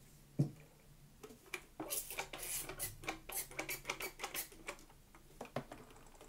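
Plastic trigger spray bottle squirting liquid dye in a quick run of short spritzes, about a dozen over a few seconds. A single knock about half a second in.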